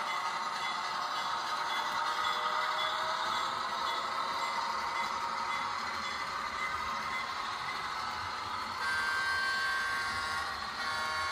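HO-scale Walthers Mainline EMD SW7 model locomotive's onboard sound system playing a steady diesel switcher engine sound through its small speaker as it slowly hauls a long freight train. About nine seconds in, a steadier higher tone comes in over the engine sound.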